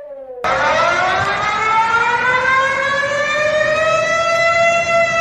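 Warning siren that cuts in abruptly about half a second in, replacing a fainter gliding siren tone, then winds up slowly in pitch for about four seconds before levelling off and starting to fall, over a hiss of background noise.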